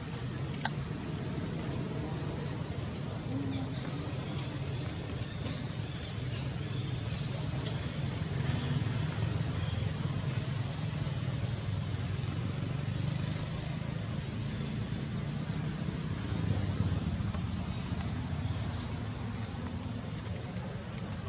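Steady low rumble of road vehicle traffic, with a faint click about a second in.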